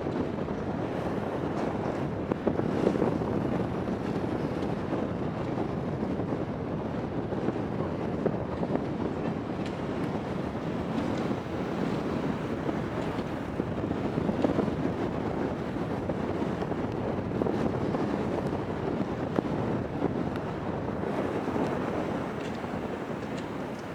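Wind buffeting the microphone in uneven gusts over a steady rushing noise, easing off near the end.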